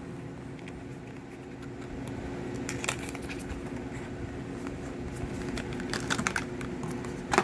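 Small clicks and taps of a lip gloss and its packaging being handled and opened, in clusters about three seconds in and again around six seconds, with a sharper click at the end. A steady low hum runs underneath.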